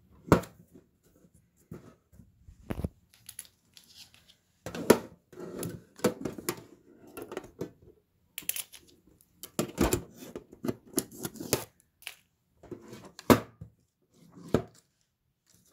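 Hands handling a metal tin and its printed packaging: irregular taps, clicks and scuffing.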